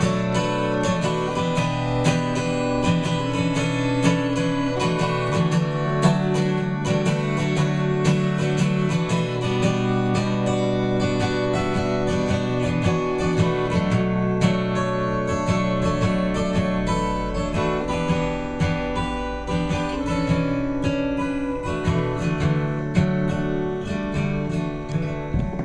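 Acoustic guitar strummed in a steady rhythm, playing a folk song live.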